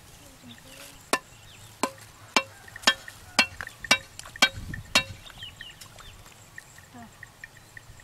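A small wooden stake being knocked into wet ground with a stick: eight sharp knocks, about two a second, stopping about five seconds in.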